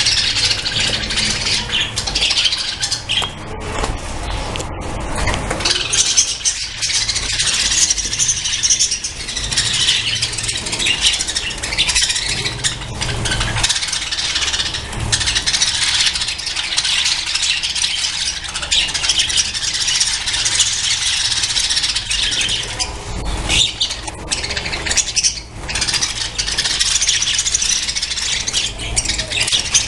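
A colony of budgerigars chattering and squawking continuously, many birds at once, over a low rumble.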